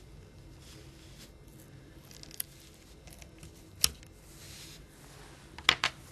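Small handling noises as a plastic pry tool works a flex circuit off a Nokia 6210 Navigator's frame: faint rustling and peeling, with a few sharp little clicks. The loudest click comes about four seconds in, and two quick ones come close together near the end.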